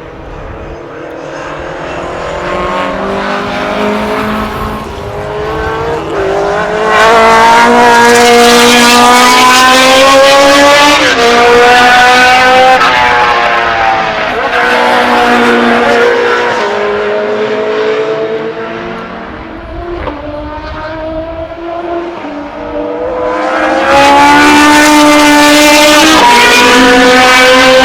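Unsilenced racing car engine pulling hard through the gears, its pitch climbing and then dropping sharply at each upshift. It is at its loudest from about seven seconds in, eases off for a few seconds past the middle, then comes back loud near the end.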